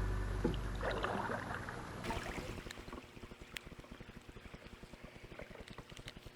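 Organ music fades out over the first second or two. Then come faint sounds of kayak paddling on the water, with a low fluttering rumble and a few small ticks.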